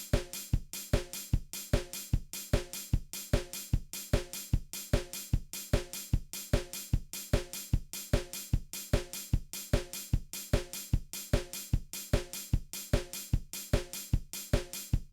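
Steady drum beat, with kick, snare and hi-hat hits in an even, unchanging rhythm.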